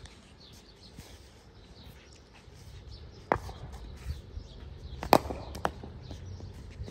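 A few sharp wooden knocks as a ball is struck with a DSC Krunch 2.0 English willow cricket bat and bounces on a concrete court; the loudest knock comes about five seconds in, with a smaller one right after it.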